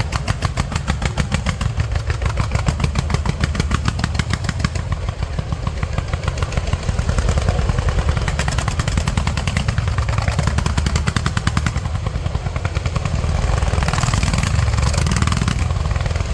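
Aerial fireworks barrage: a rapid, even train of sharp reports at about ten a second, giving way after about five seconds to a dense, continuous run of deep booms and crackle that swells near the end.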